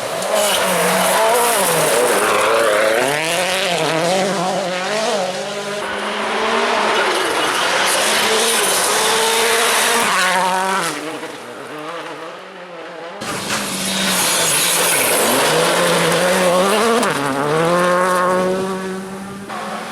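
Rally cars at full throttle on a special stage, each engine revving up and dropping back with every gear change. An abrupt cut about two-thirds of the way through switches to another car's run.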